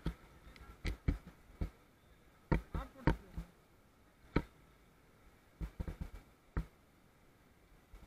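Irregular, muffled knocks and bumps, some in quick clusters, from the raft-mounted camera being handled and jostled as its view is moved.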